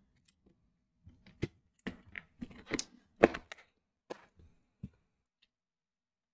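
A run of small, sharp clicks and taps, about a dozen over some four seconds with the loudest about three seconds in, as a replacement iPhone 11 screen is pressed into its frame around the edges and the phone is handled.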